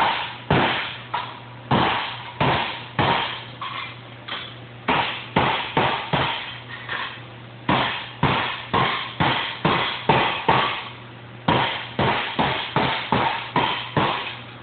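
Light hand-hammer blows on sheet steel, shrinking ruffles out of the edge of a Model A quarter panel: a long, uneven run of sharp metallic strikes, about two a second, each ringing briefly, with a couple of short pauses.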